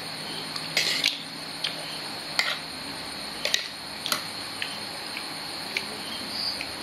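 Metal spoons and forks clinking and scraping against ceramic plates while two people eat, in scattered, irregular taps about every half second to second.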